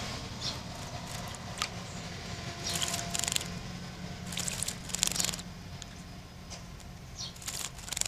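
Great tit bathing in a shallow bird bath, its wings splashing the water in short bursts: about three seconds in, around five seconds, and again near the end, over a low steady hum.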